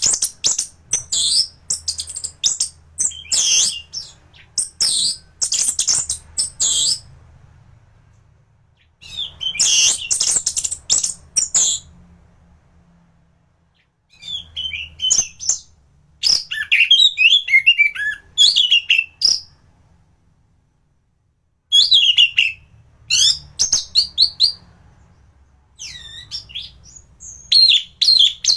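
Orange-headed thrush (anis merah) in full song: bouts of rapid, high, varied chirps and whistles a few seconds long, broken by short pauses, five bouts in all, with a faint low hum under the song.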